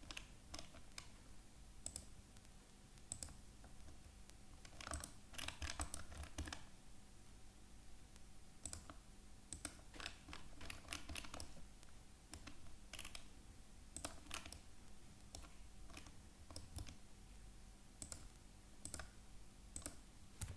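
Faint, scattered clicks of a computer mouse and keyboard, with quick flurries about five seconds in and again about ten seconds in.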